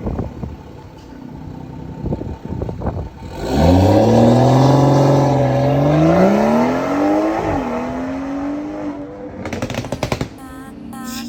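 Tuned car engine revving: its pitch climbs, holds, climbs again and settles at a higher steady pitch for a couple of seconds, then stops. A few knocks and clatter follow near the end.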